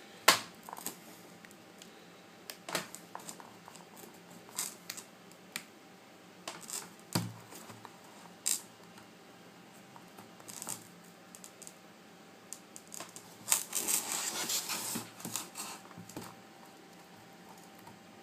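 Plastic opening tool clicking and scraping against an iPad 2's glass and frame as it is levered up to lift the heat-softened glass. Scattered sharp clicks, with a denser run of clicking and scraping about fourteen seconds in.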